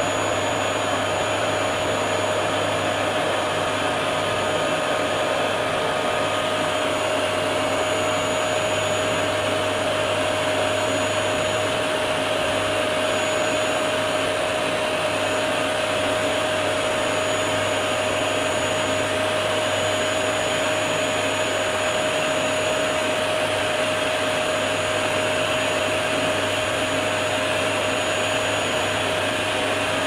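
Vacuum cleaner motor running steadily with a constant whine, its brush attachment working over the fins of an air conditioner's evaporator coil.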